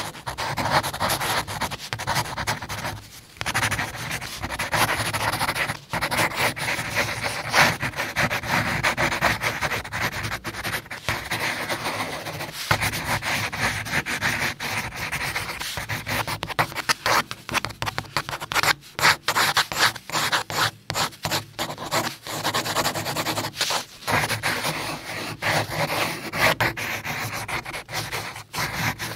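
Pencil drawing on paper: graphite scratching and rubbing in continuous back-and-forth strokes, with brief pauses where the pencil lifts.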